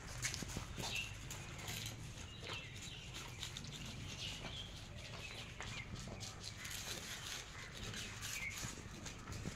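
Puppies eating from foil bowls: scattered small clicks of chewing, lapping and muzzles knocking the foil, with short high chirps over it.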